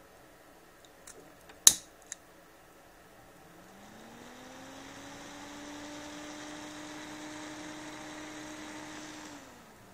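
A few handling clicks near the start, one sharp and loud. Then a computer cooling fan switched by the thermostat spins up with a rising hum, runs steadily for several seconds, and shuts off and winds down near the end.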